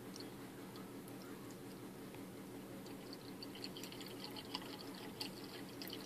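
White vinegar poured from a plastic jug into the open PVC tee of an air conditioner condensate drain line to clean out the clogged pipe: a faint trickle and splash that picks up about halfway through, over a low steady hum.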